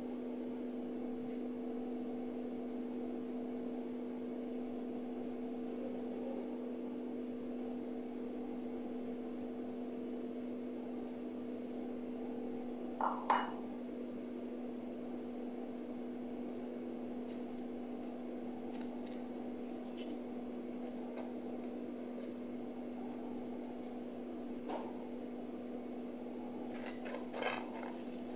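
A steady low hum runs underneath while salad is tossed by hand in a serving bowl, with a sharp clink about halfway through and a few faint clicks near the end.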